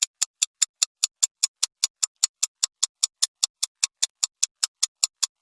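Fast, even ticking of a countdown-timer clock sound effect, about five ticks a second, marking the time allowed to answer.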